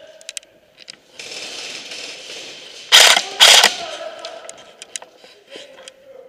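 Airsoft electric rifle firing two short bursts close to the microphone about three seconds in, its gearbox cycling with a ratcheting, gear-like rattle. Scattered sharp clicks and a rushing noise lasting about two seconds come before the bursts.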